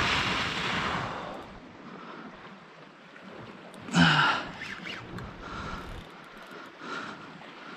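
A man breathing hard from the exertion of fighting a big tuna: a long, loud breathy exhale, then a short voiced gasp about four seconds in.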